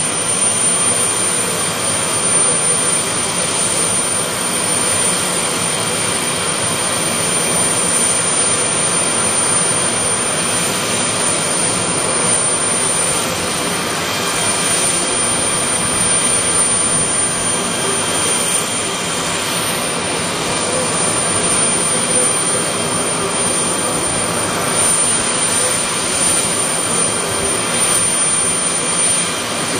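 Steady jet engine noise of a Tu-154B-2 airliner's three Kuznetsov NK-8-2U turbofans, heard from the ground as it flies low: a continuous rushing sound with thin steady whines on top.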